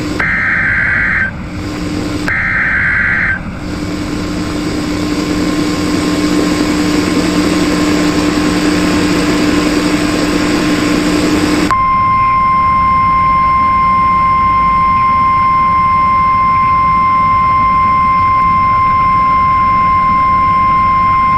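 Emergency Alert System alert on NOAA Weather Radio: two short bursts of the screeching SAME digital header data, then several seconds of hiss with a low hum. About halfway through, the steady single-pitch warning alarm tone begins and holds to the end, signalling that a warning broadcast follows.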